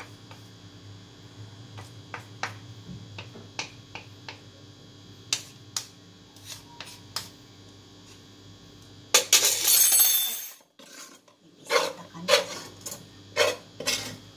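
Kitchen utensils and dishes clinking and tapping as cooked fried rice noodles are served into containers, with a loud harsh noise lasting about a second about nine seconds in and several louder knocks near the end.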